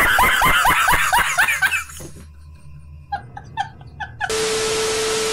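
A man laughing hard in a quick run of loud ha-ha bursts, trailing off into quieter, broken gasps of laughter. Near the end it gives way to a steady hiss with a low hum.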